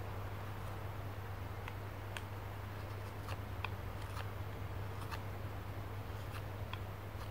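Hook knife slicing thin shavings from the inside of a dried willow spoon bowl, a run of short, crisp cutting ticks at an uneven pace. A steady low hum lies underneath.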